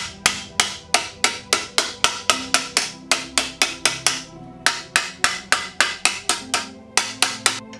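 Rapid hammer blows on sheet steel, about four a second with two short breaks, each ringing briefly, over background music.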